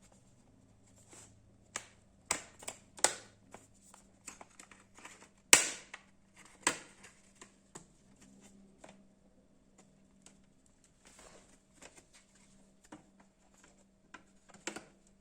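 Irregular sharp clicks and knocks of a laptop's bottom cover and chassis being handled as the cover comes off, the loudest knock about five and a half seconds in.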